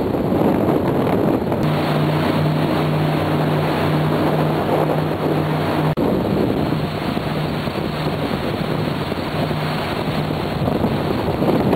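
Regal 4060 cruiser running under way: a steady low engine drone under the rush of water and wind buffeting the microphone. There is a brief dropout about halfway through.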